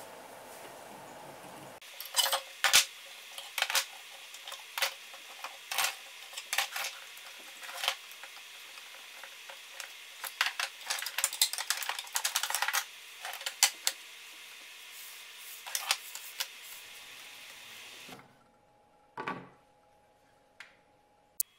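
Metal clamps clinking and clattering against each other and the bench as they are handled, in an irregular run of sharp knocks and rattles. Near the end comes one dull thump and a couple of light clicks.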